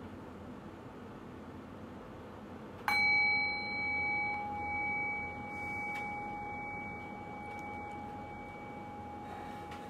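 A meditation bell is struck once about three seconds in and rings with a clear tone and higher overtones. The ring fades slowly, its loudness wavering as it dies away. Before the strike there is only quiet room tone.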